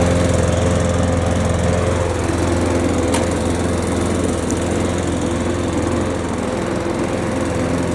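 Benchmark walk-behind lawnmower's 200cc OHV engine running steadily at a constant speed.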